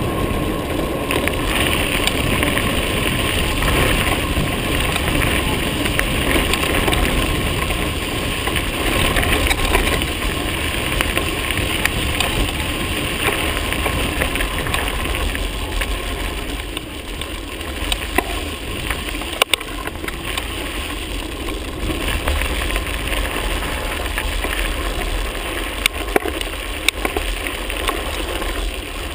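Wind rushing over the microphone and tyre noise of a bicycle riding along a country lane that turns from tarmac to gravel. In the second half, sharp knocks and rattles from the bike on the rough surface.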